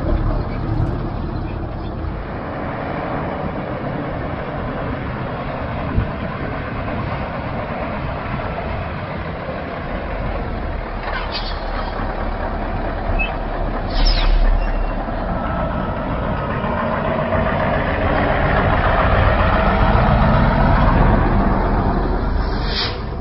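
Diesel engine of a Mercedes-Benz tractor unit hauling a container trailer at low speed, getting louder as it draws closer near the end. Three short hisses of air from its air brakes break in, the loudest about halfway through.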